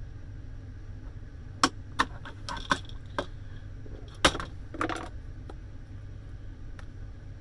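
A run of sharp clicks and clinks of small hard parts and tools being handled and set down while dismantling the shredder. They fall mostly in the middle of the stretch, the loudest just after four seconds in, over a steady low hum.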